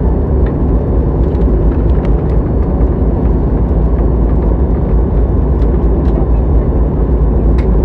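Jet airliner cabin noise: a steady, deep rumble of engines and airflow heard from a passenger seat, with a few faint clicks.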